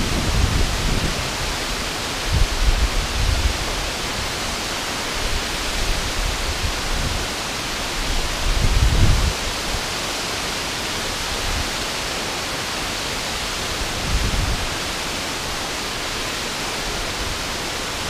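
Steady rushing hiss of river water pouring over a low dam spillway and down a rocky riverbed. A few low rumbles of wind buffeting the microphone come and go, about four times.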